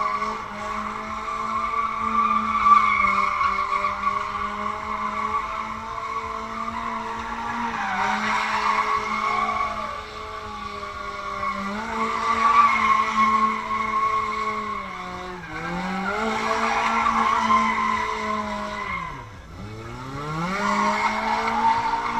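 Car engine held at high revs while the rear tyres squeal and smoke through continuous donuts. Late on the revs drop twice, once briefly and once deeply, then climb back up as the squeal resumes.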